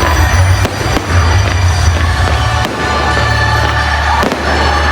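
Fireworks going off: several sharp bangs over a deep, continuous rumble, with music playing along.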